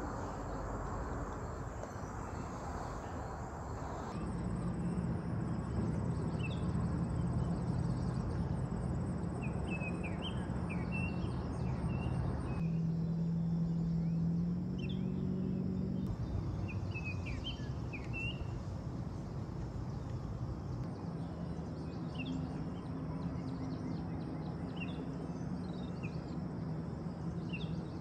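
Outdoor ambience: insects trilling at first, then many short bird chirps over steady background noise and a low hum, changing abruptly at a few edits.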